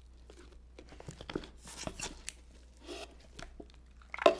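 Compound Kings powder slime being pulled out of its plastic jar and kneaded by hand on a tabletop: soft sticky tearing and crackling as the set slime stretches and is pressed. One louder noise comes near the end.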